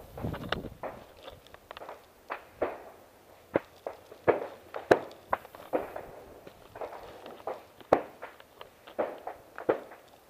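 Footsteps of a hiker climbing steps made of old wooden railway ties: irregular sharp footfalls of shoes striking the ties and scuffing on dirt and grit, roughly one or two a second.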